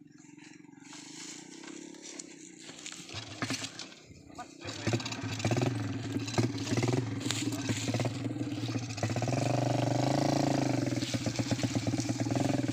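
A motorcycle engine comes in about five seconds in and runs steadily, growing louder from about nine seconds.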